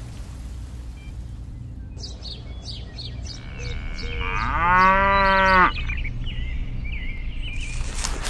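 A cow moos once, loudly, for just over a second, the loudest sound here. Before it, a hiss of rain fades away and a bird chirps in quick repeated notes.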